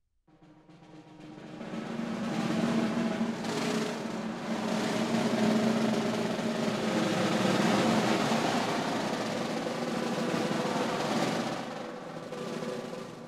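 Ensemble of eight snare drums playing a sustained roll together. It swells in from silence over about two seconds, holds loud with a brief dip, and fades away near the end.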